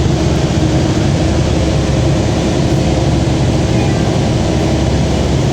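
Hovercraft's engines and fans running at a steady, loud drone with a few faint steady tones in it, heard from inside the passenger cabin.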